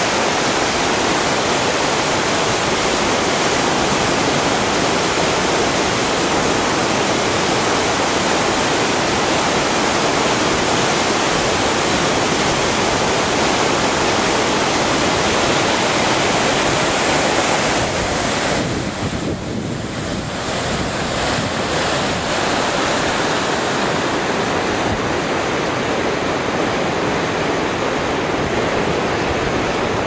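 Strong wind buffeting the microphone over choppy, wind-whipped water: a loud, steady rushing noise that eases briefly about two-thirds of the way through.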